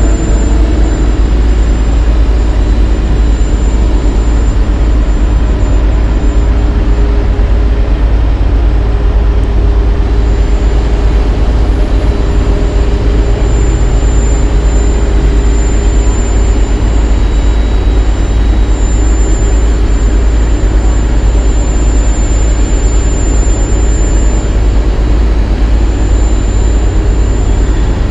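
Heavy diesel engines of an asphalt paver and the dump truck feeding it running together in a loud, steady drone. A roller compactor's engine passes close by about a second in.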